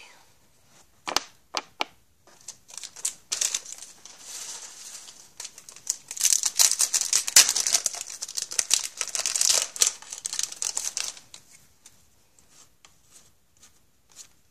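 A foil hockey-card pack being torn open and crinkled by hand. There are a few light taps and rustles at first, then dense crinkling from about six to eleven seconds in.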